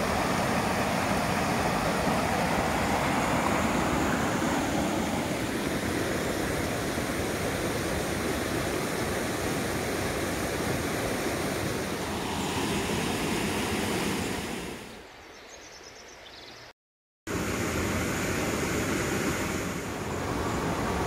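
Small woodland stream rushing over a low rocky cascade: a steady, even rush of water. About fifteen seconds in it fades, cuts out completely for a moment, then a similar steady rush returns.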